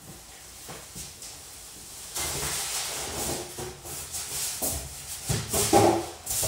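Cardboard packaging rustling and scraping as pieces are handled and lifted out of a barbecue's shipping box. The handling noises grow louder near the end.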